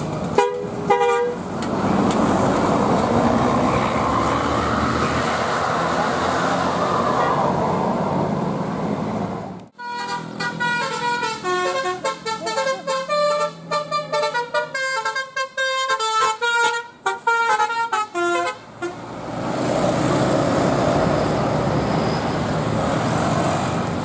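A bus's Basuri telolet multi-tone musical horn plays a quick melody of many short notes for about nine seconds, starting about ten seconds in. Before and after it there is a steady rush of bus engine and road noise, and a couple of short horn notes sound right at the start.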